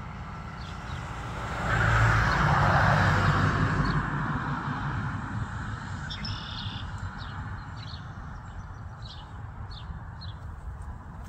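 Short, high bird chirps scattered throughout, over a passing vehicle whose noise swells in about two seconds in and fades away a few seconds later.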